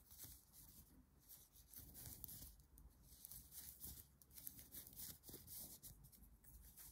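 Faint, irregular clicks and rustles of knitting needles and yarn being worked by hand, barely above near silence.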